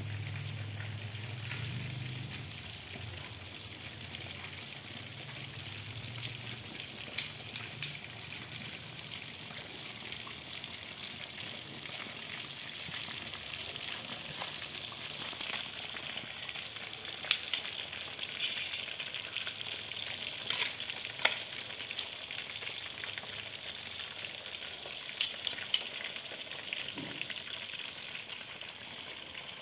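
Cooking oil frying with a steady sizzle. Sharp metal clinks, about four small clusters, come from a spoon and fork knocking against a stainless steel pot as chicken pieces are turned in the coating.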